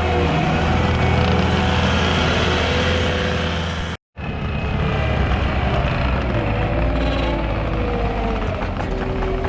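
Cat 289D skid steer's diesel engine running at working revs, its pitch wavering as it works. The sound cuts out for an instant about four seconds in and then carries on.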